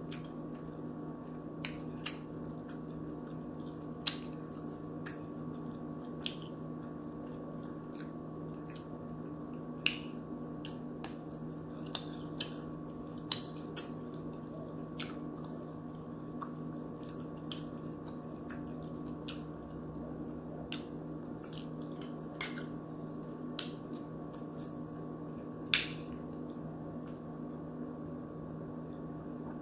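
Eating sounds: scattered sharp clicks from chewing, mouth smacks and a fork tapping the plate, over a steady low hum.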